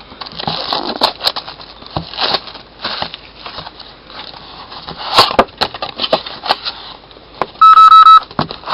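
Crackling and crinkling of wrapping with sharp clicks as a card box is being opened. Near the end comes a loud burst of rapid electronic beeps from a phone, the tone of a dropped call.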